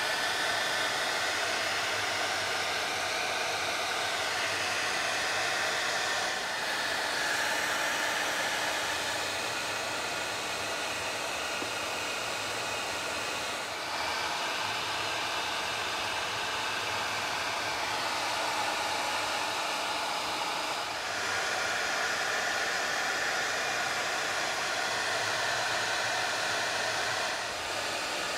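Heavy-duty hair dryer running continuously on high heat, a steady rush of air with a faint motor whine; here it is melting crayon wax and blowing it onto a canvas. Its tone shifts slightly a few times as it is moved.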